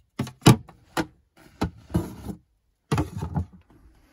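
A string of sharp knocks and clicks as the Phonetone cell signal booster's plug-in power adapter is pulled from the wall outlet and its cables are handled.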